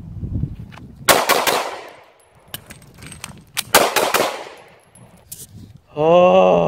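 Semi-automatic pistol fired in two quick strings of several shots each, about a second in and again near four seconds, each shot followed by a short echo.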